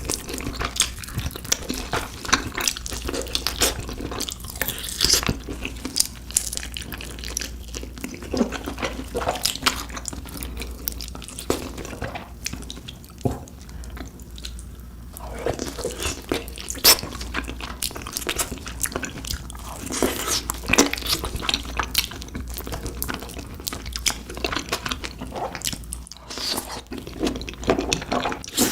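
Close-miked chewing of spicy beef feet: a dense run of wet, sticky mouth smacks and clicks, with a short lull about halfway through.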